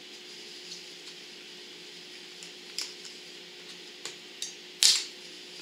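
Small plastic clicks and knocks as the darkness-adjuster knob is worked off a welding helmet's plastic shell by hand, with one much louder knock near the end, over a faint steady hum.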